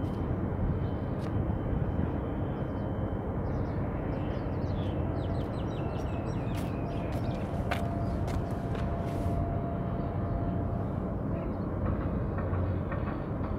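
Steady low outdoor rumble and hiss of harbour ambience, with a run of short high chirps and a few faint clicks about four to eight seconds in.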